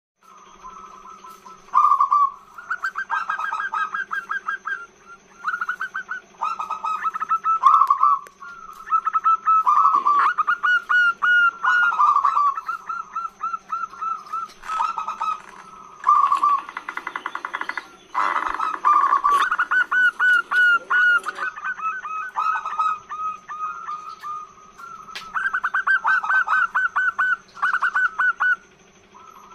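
Female zebra dove (perkutut) cooing its long song: runs of rapid rolling notes in bursts of a few seconds each, one after another, the call a female gives to draw a male. A steady faint hum lies underneath.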